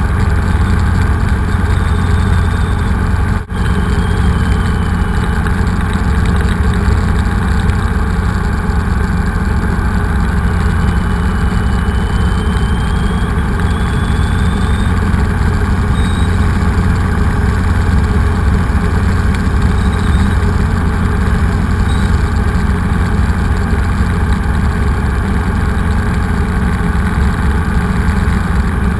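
Steady engine and rotor noise of a Robinson R22 helicopter heard from inside the cockpit in flight, a loud low drone with a fainter whine above it. It is broken once by a sharp click and momentary dropout about three and a half seconds in.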